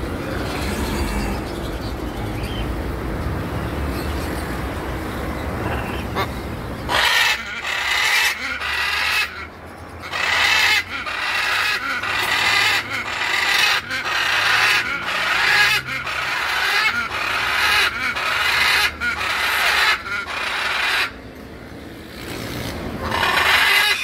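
A cockatoo screeching, harsh calls repeated about once a second, beginning about seven seconds in and stopping a few seconds before the end. Before them there is a steady low rumbling noise.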